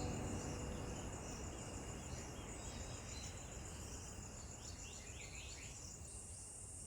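Rainforest insects trilling steadily at a high pitch over a soft, even hiss, with a few quick falling chirps about five seconds in.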